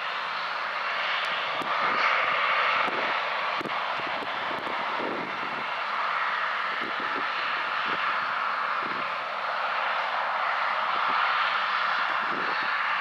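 Combine harvester running steadily under load, a dense machine noise with scattered short knocks and clicks.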